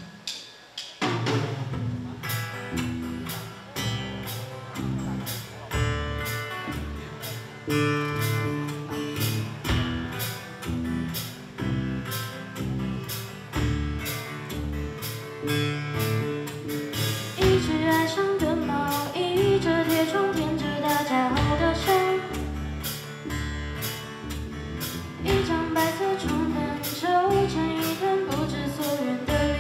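Live rock band playing: a drum kit keeping a steady beat under electric guitars and bass, with a sung lead vocal coming in about halfway through.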